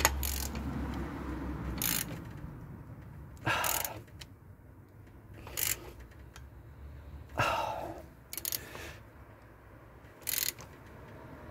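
Valve spring compressor on a Ford CVH cylinder head being worked a fraction further to free the valve stem for its collets: about seven short metallic clicks and scrapes, irregularly spaced a second or two apart.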